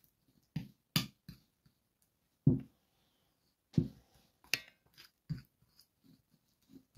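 A spoon stirring a mixture of ground cumin, oil and honey in a small dish: irregular clicks and taps of the spoon against the dish, the loudest about two and a half seconds in and again around four seconds.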